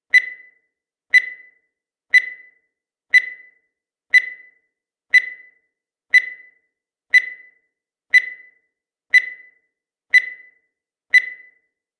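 Countdown timer sound effect: a short high beep once every second, each one fading quickly, twelve in a row at an even pace.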